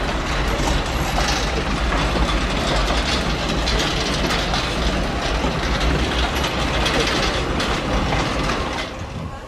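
Small two-axle electric shunting locomotive and its flat wagons rolling along 760 mm narrow-gauge track, the steel wheels and running gear clattering and rattling over the rails. The clatter is steady and then drops off near the end.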